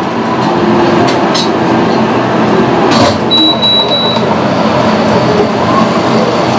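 Steady loud rushing noise under a simmering pan. About three seconds in there is a click and then a single high electronic beep from the induction cooktop's control panel as the power setting is raised.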